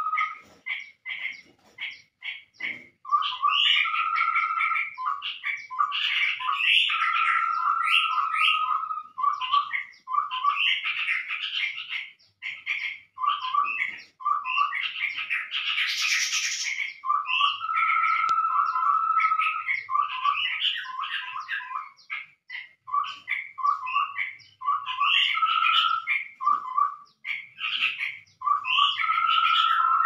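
Chestnut-rumped babblers calling in a lure recording used for bird trapping. Quick runs of low notes alternate with held whistled notes over higher chattering, with a harsh, noisy burst lasting about two seconds midway.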